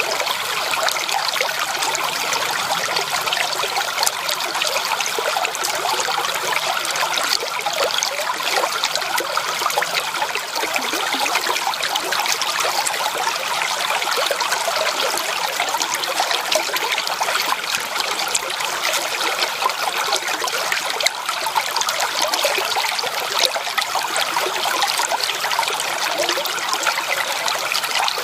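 Creek water trickling and babbling over stones in a steady, unbroken flow.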